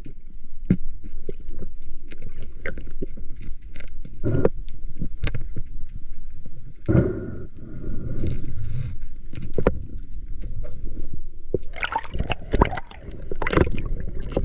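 Underwater sound heard through a diver's camera housing: a low rush and gurgle of moving water, broken by sharp clicks and knocks as the speared fish, spear shaft and line are handled. It grows louder and hissier near the end, like bubbles.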